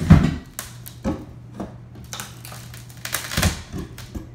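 Rotted wooden wall framing being pried and wrenched out with a metal pry bar: irregular knocks, cracks and scrapes of wood, loudest just after the start and again about three and a half seconds in.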